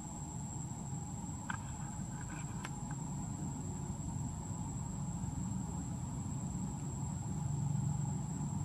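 Outdoor background of a steady, high-pitched insect drone over a low rumble, with a few faint brief chirps about a second and a half in.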